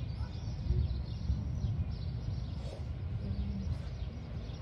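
Outdoor city ambience: a low, uneven rumble with faint bird chirps.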